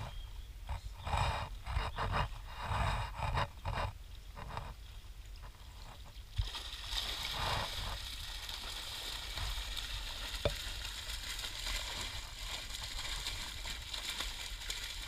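Water sloshing irregularly as a seine net is dragged through a shallow fish pond. About six seconds in it gives way to a steady hissing splash of tambaqui thrashing in the closing net, with one sharp knock about ten seconds in.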